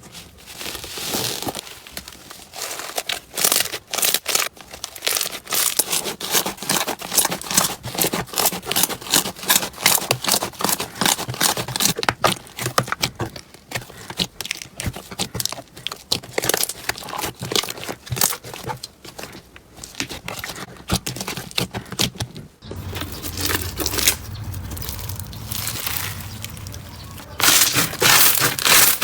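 Crunchy slime being squeezed and pressed, giving a rapid run of small crackles and pops. The sound changes about three-quarters of the way through to a rougher, steadier crunching with a low hum underneath, and grows loud near the end.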